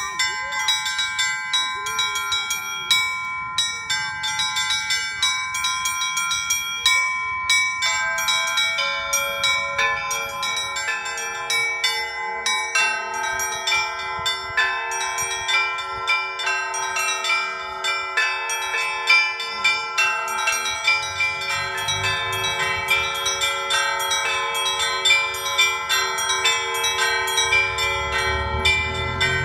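Russian church bells rung in a full peal: small high bells struck in a quick, steady rhythm, with larger, lower bells joining about eight seconds in and again about ten seconds in, filling out the chime.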